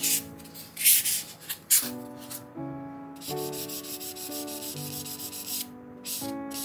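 A fine sanding pad rubbed back and forth in short strokes over a small painted model car part. It makes a dry, hissy scratching that comes in bursts, with brief pauses a little before the midpoint and near the end.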